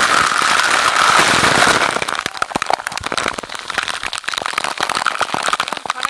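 Waterfall water pouring directly onto the camera: a loud rush for about the first two seconds, then a dense, rapid crackle of drops and splashes striking the microphone.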